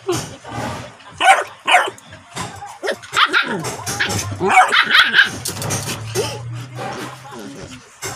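Two dogs, a white puppy and a larger brown dog, fighting: a string of sharp barks and yips in irregular bursts, the loudest about a second in and from about three to five seconds in.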